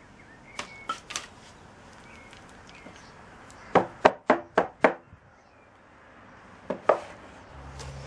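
Sharp wooden knocks from rapping a wooden sand-casting moulding box to loosen the pattern in the sand: three light taps about half a second in, five quick loud raps in about a second near the middle, and two more knocks near the end.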